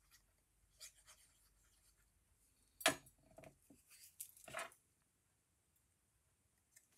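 A few short, soft rustles and taps of paper being handled and a cutout pressed onto cardstock, the sharpest tap about three seconds in.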